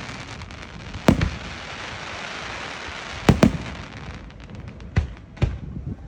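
Fireworks going off: about five sharp bangs, two of them close together just past the middle, over a dense crackle that thins to scattered small cracks near the end.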